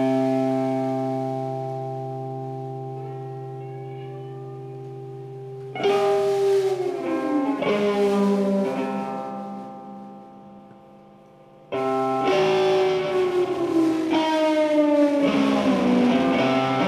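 Electric guitar improvisation: a held chord rings and slowly fades, then the guitar is struck again about six seconds in and again near twelve seconds, each time with notes sliding downward in pitch.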